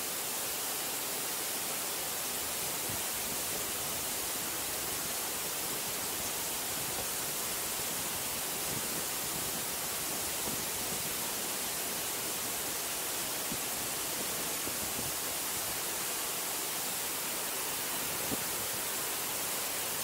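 Steady rushing of a large waterfall, Ōko Falls, a constant even hiss-like wash of falling water with no change in level.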